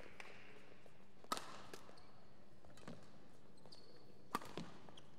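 Badminton rally: rackets hitting the shuttlecock in sharp cracks, two loud hits about three seconds apart with fainter hits between, and brief high squeaks of shoes on the court floor.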